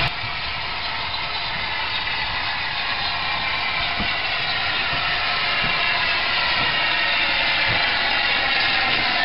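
Steam locomotive hissing steam as it draws closer: a steady hiss that grows slowly louder, with a few faint low knocks.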